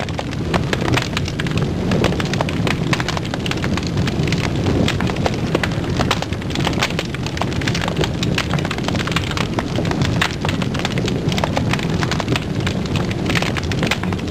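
Fire crackling sound effect: dense, irregular crackles and pops over a low rumble, cutting in abruptly and running steadily, for flames burning on the wall lamps.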